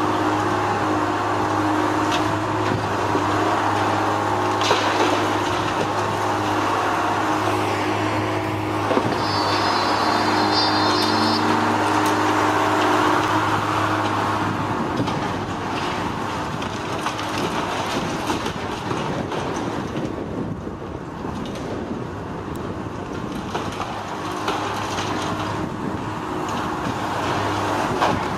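Heavy demolition machinery running with a steady low engine drone that drops away about halfway through, leaving a rough continuous rumble, with a few sharp knocks and a brief high squeal.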